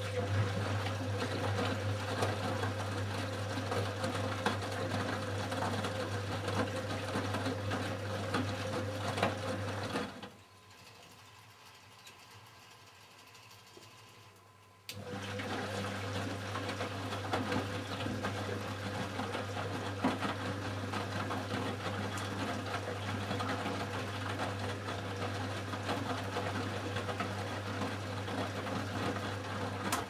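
Siemens Siwamat 285 washing machine's drum motor tumbling the load in the wash: a steady hum that runs for about ten seconds, stops for about five, then starts again, as the drum turns one way, pauses and reverses.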